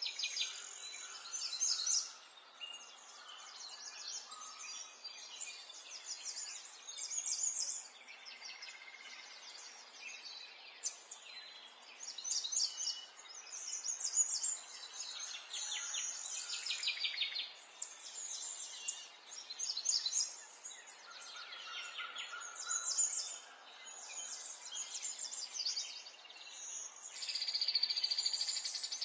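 A chorus of songbirds singing and calling, with many overlapping chirps and trills over a steady background hiss, and a buzzy trill near the end.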